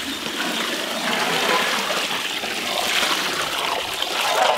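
Beef broth poured in a thick, steady stream into a large pot of spiced chickpea mixture, splashing as it fills.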